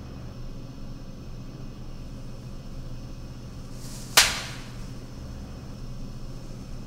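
A single sharp slap, a hand striking a face hard, about four seconds in, over a steady low room hum.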